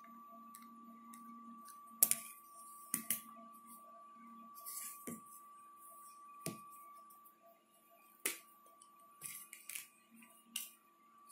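Handling noise as the recording camera is moved over a sheet of paper: a scattered series of sharp clicks and knocks, the loudest about two seconds in, over a faint steady high hum.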